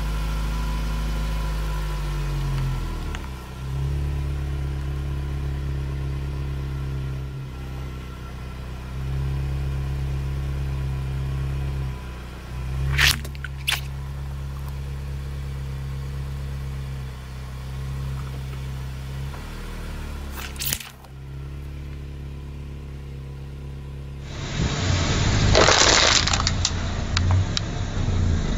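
Car engine running slowly at low revs while its tyre rolls onto a mesh bag of orbeez water beads, with a few sharp cracks as the bag is crushed, about 13 s in and again near 21 s. Near the end the sound changes to a louder, rough rushing noise with a surge in the middle.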